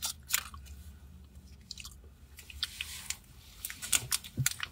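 People chewing soft mochi close to the microphone: scattered wet mouth clicks and smacks over a low steady hum.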